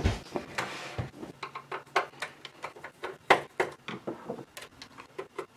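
Hands working with a small screwdriver on the LED holder of a metal computer case: irregular light clicks and taps, with a dull knock at the start and another about a second in, and a sharper click about three seconds in.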